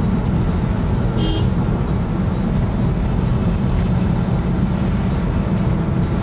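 Steady engine drone and road noise of a moving vehicle, heard from on board. A brief high tone sounds about a second in.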